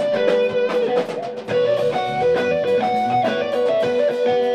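Band music led by electric guitar, a repeating melodic figure played over a steady beat.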